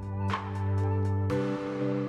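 Background music: sustained chords over a beat of drum hits, moving to a new chord with a cymbal-like wash just over a second in.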